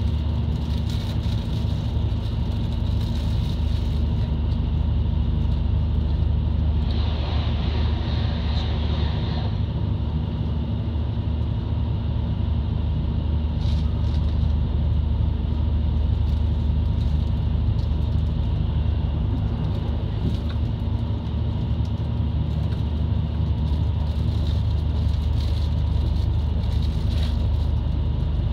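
JR Kyushu KiHa 72 series diesel railcar running at steady speed, heard from inside the cabin: a steady low engine drone with running noise from the wheels on the rails. About seven seconds in, a louder rush of noise lasts a couple of seconds.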